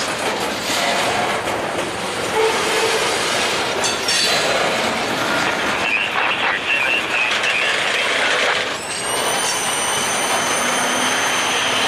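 Freight train covered hopper cars rolling past close by, with steel wheels clattering and rumbling on the rails. Short wheel squeals come partway through, and a steady high-pitched wheel squeal sets in about three quarters of the way in.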